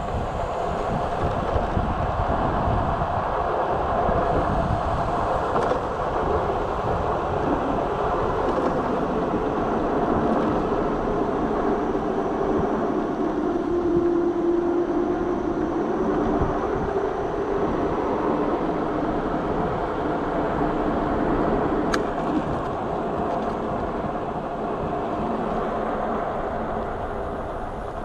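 Juiced Scrambler e-bike riding along a road at speed: wind buffets the microphone over tyre noise, with a faint steady hum from the electric motor that drifts in pitch about halfway through.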